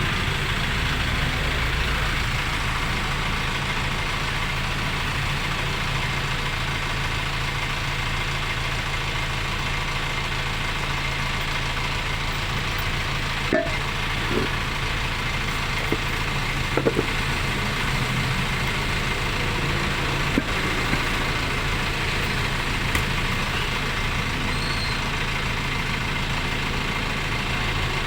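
An engine idling steadily, with a few short sharp clicks partway through.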